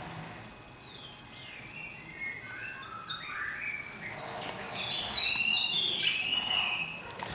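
Fantail singing: a phrase of short whistled notes, starting about a second and a half in, that climbs in pitch and then steps back down.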